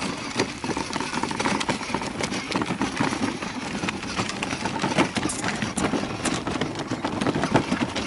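Children's battery-powered ride-on toy motorcycle rolling over a gravelly dirt road: its plastic wheels crunching and the toy body rattling, with many small clicks throughout.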